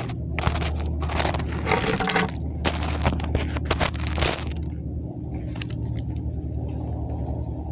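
About four seconds of crackling, scraping noise with a few sharp clicks, over a steady low rumble.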